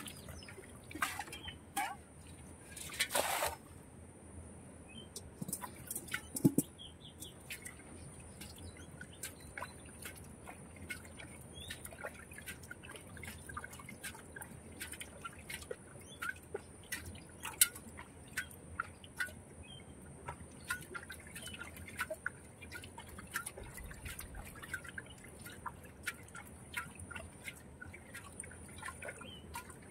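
Muddy water splashing and dripping as hands grope and scoop in a shallow, water-filled hole in mud: irregular small splashes and drips throughout, with a louder splash about three seconds in.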